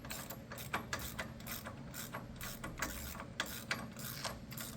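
Hand socket ratchet clicking as it tightens a brake caliper bracket mounting bolt, with quick, uneven clicks several times a second.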